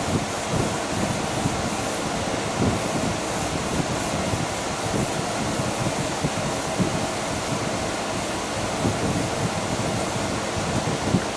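Steady rushing noise of a room air conditioner running, with a few small knocks from handling.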